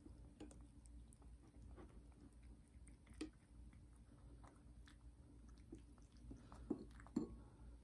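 A cat chewing and licking soft pieces of Korean melon (chamoe) from a saucer: faint, irregular wet mouth clicks, with a few louder ones near the end.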